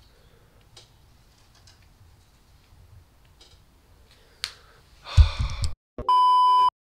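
A few faint clicks in a quiet room, then a loud burst of TV-static noise and a steady high test-pattern beep of about half a second that cuts off abruptly into dead silence: an edited 'no signal' sound effect over colour bars.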